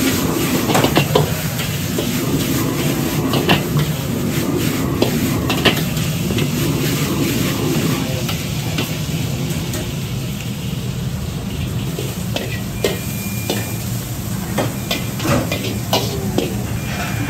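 Metal wok ladle scraping and clanking against a wok as noodles stir-fry with a steady sizzle, over the continuous rush of a gas wok burner. The ladle strikes come irregularly, several a second at times.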